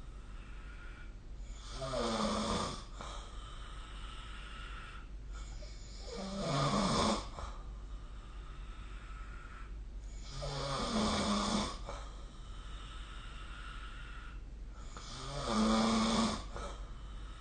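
A sleeping person snoring: four snores at a steady pace, about four and a half seconds apart, each lasting about a second.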